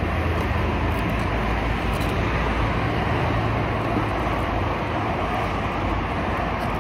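Steady hum of road traffic, an even wash of noise with no single event standing out.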